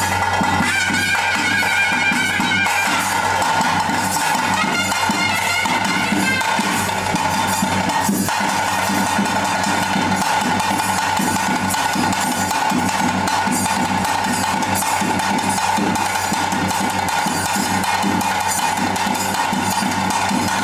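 Ritual music of drums and a reed pipe: fast, dense drumming under a held, reedy pipe tone, with a higher wavering melody line that comes in twice in the first seven seconds.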